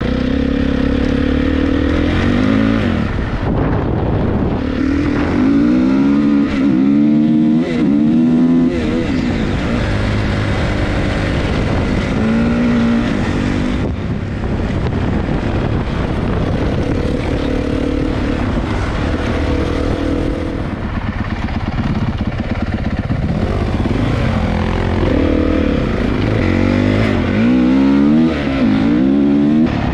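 A 450 dirt bike's single-cylinder four-stroke engine under way, revving up through the gears in repeated rising sweeps twice, with steadier running in between.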